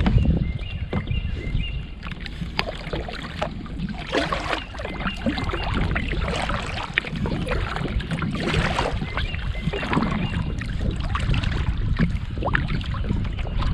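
Sounds of a small fishing boat on the water: a steady low rumble of wind on the microphone, with scattered knocks and clicks from the hull and gear.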